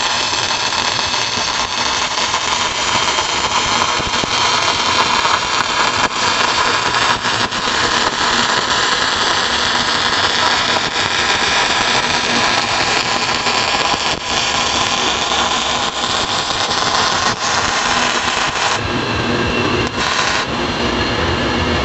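Wire-feed (MIG) welding arc crackling and sizzling steadily as a bead is run along a fillet joint on thick steel plate, as one pass of a multi-layer weld.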